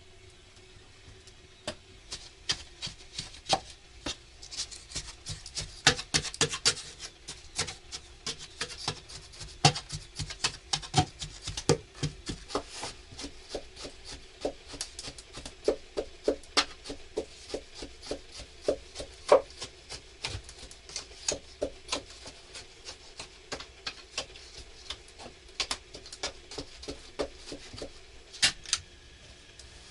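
Irregular clicks, taps and rubbing from hands working with objects, often several a second.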